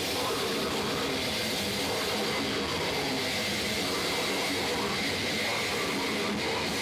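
Live hardcore band playing at full tilt: heavily distorted electric guitar and drums with screamed vocals, heard as a dense, steady wall of noise.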